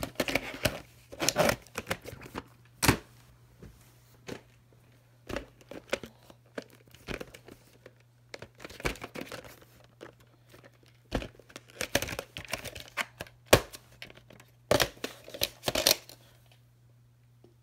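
A plastic clamshell VHS case and its videocassette being handled: irregular clicks, knocks and scraping as the case is opened and closed and the tape is picked up and set down, stopping near the end. A faint steady low hum lies beneath.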